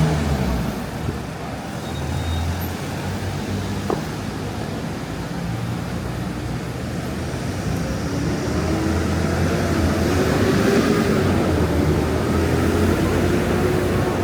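City street traffic: a steady low rumble of motor vehicles, with one vehicle's engine growing louder from about eight seconds in and passing close around ten to thirteen seconds.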